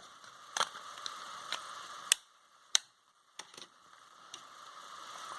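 Light, scattered clicks and taps, about eight over a few seconds, from handling an opened smartphone during repair, over a faint steady hiss.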